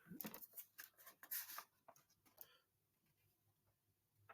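Near silence: a few faint short clicks and rustles in the first couple of seconds, then quiet room tone.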